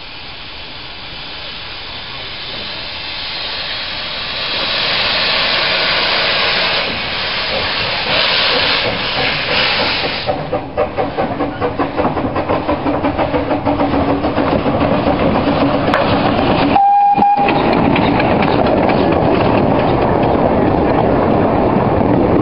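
Narrow-gauge steam locomotive hissing loudly as it blows off steam, then setting off and passing close by with rapid, quickening exhaust chuffs and the clatter of its carriages. The sound drops out for an instant about seventeen seconds in.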